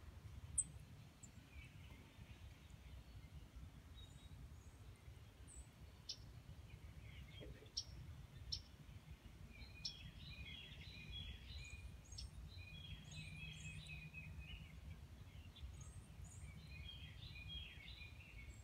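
Faint wild songbirds chirping and singing over a low steady outdoor rumble. Short high chirps are scattered throughout, and from about ten seconds in there are three short warbled song phrases.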